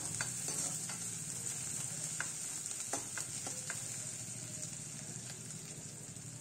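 Onions and ginger-garlic paste sizzling in hot oil in a kadai, stirred with a metal spatula that clicks and scrapes against the pan several times over the first few seconds.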